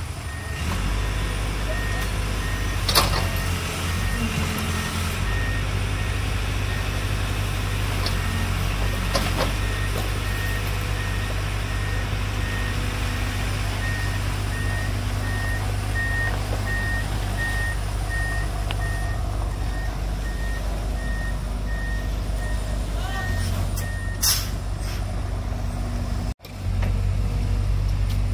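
Heavy diesel machinery running steadily while a reversing alarm beeps at about two beeps a second, stopping about 24 seconds in. A few sharp knocks come through, the loudest about 3 seconds in.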